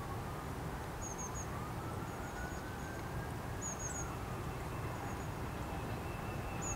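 A small bird chirping in quick little groups of three or four notes, repeated every second or so, over a steady low rumble. A faint tone rises slowly and then falls away during the first four seconds.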